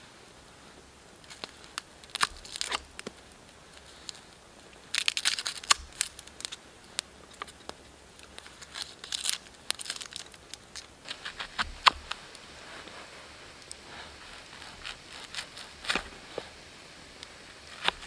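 Knife carving a small piece of wood for a spoon: irregular short scraping strokes and sharp clicks that come in clusters, with brief pauses between them.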